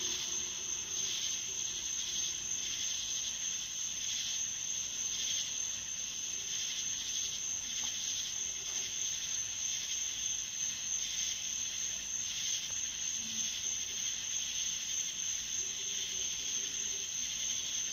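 Night insect chorus: a steady high-pitched drone with a softer, slowly pulsing layer beneath it, and a faint low hum coming and going.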